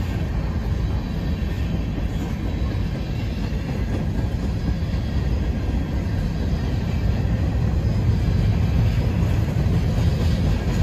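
Freight train of covered hopper cars rolling past, a steady low rumble of steel wheels on the rails.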